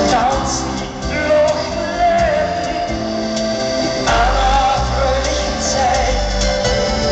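Live acoustic band music with a singer: acoustic guitars and accordion playing under a sung melody, with the reverberation of a large hall.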